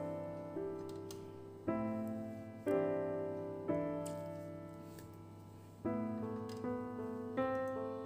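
Gentle background piano music: chords struck and left to ring and fade, one held for about two seconds in the middle, then quicker notes near the end.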